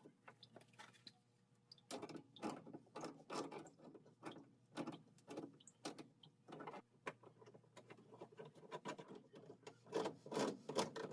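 Faint, irregular rubbing, scraping and clicking of hand work on under-sink plumbing fittings as new shut-off valves are fitted.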